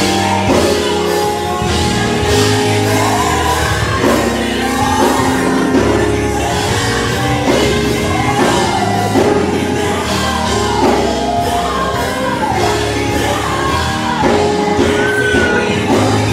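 Live gospel music: a group of women singing into microphones over a band, with the lead voice sliding up and down and low bass notes held underneath.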